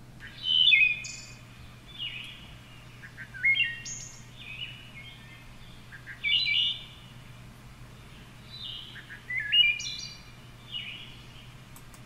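Wood thrush song played from a recording: flute-like phrases of several stepped notes at once, about four louder phrases some three seconds apart with softer phrases between them. Some phrases end with a high buzzy part.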